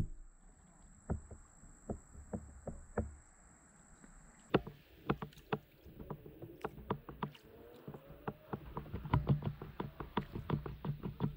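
A fishing kayak being paddled standing up through shallow water: paddle strokes with repeated sharp knocks against the hull. The knocks are sparse at first and come thick and fast after about four and a half seconds.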